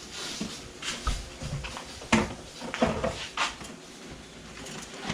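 A series of sharp knocks and clunks, a few to a second or so apart, with a low thud about a second in, as of objects being handled and set down.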